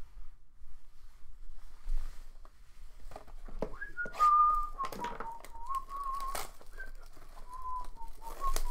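A man whistling a short, wandering tune, a single clear note that slides up and down, starting about four seconds in. Underneath are scattered clicks and rustles of a box of trading card packs being handled.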